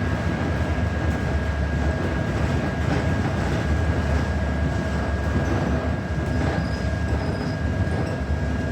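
Steady low rumble of a New Flyer XD40 diesel city bus heard from inside the cabin, engine and drivetrain noise with a thin steady high whine and a few faint ticks.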